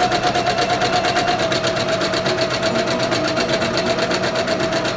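Husqvarna electric sewing machine running steadily at speed, sewing a long basting stitch: a constant motor whine with a rapid, even clatter of the needle stitching.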